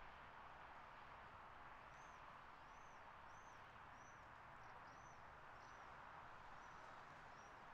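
Faint bird song: a small bird repeats one short, high, rising-and-falling note about every half second, over a quiet steady hiss.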